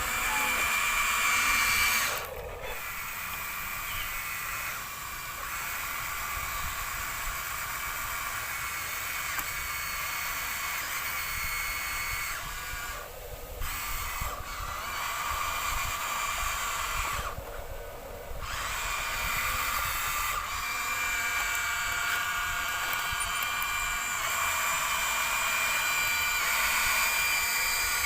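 Small electric motors and gearboxes of radio-controlled toy construction vehicles whining steadily, stopping briefly a few times as the controls are let go and picked up again.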